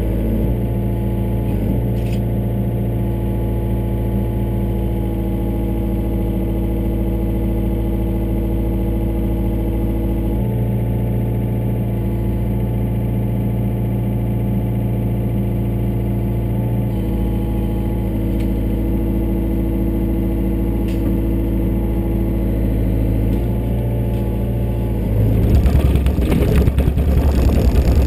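Yanmar ViO57 mini excavator's diesel engine running steadily, heard from inside the cab, its note shifting a little now and then as the hydraulics take load. About three seconds from the end it gets louder and rougher, with a clattering rumble over the engine.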